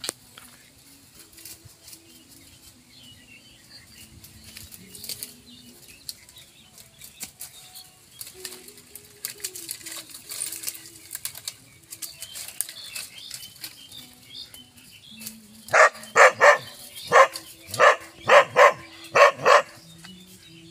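Dry bamboo stems and leaf litter rustling and crackling. About fifteen seconds in, a dog barks loudly about nine times in quick succession.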